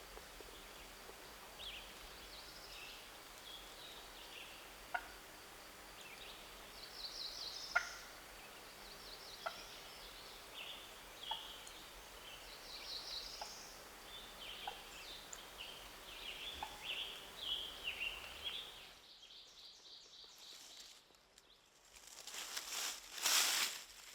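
Wild turkey gobbler gobbling twice, each a rapid rattling call about a second long, among scattered short calls of other birds. Near the end there are louder bursts of noise.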